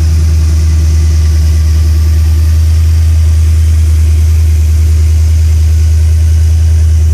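Chevrolet 454 big-block V8 running steadily at idle through newly installed headers.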